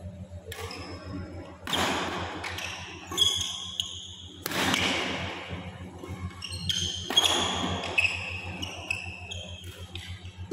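Badminton rally: rackets striking the shuttlecock again and again, the hardest hits about two, four and a half and seven seconds in, with sneakers squeaking on the court mat. A steady low hum runs underneath.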